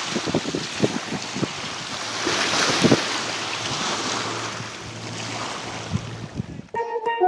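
Wind buffeting the microphone and water rushing as a 22-foot Velocity speed boat runs past on the water. The rush swells about two and a half seconds in and then fades, with a faint low engine hum under it.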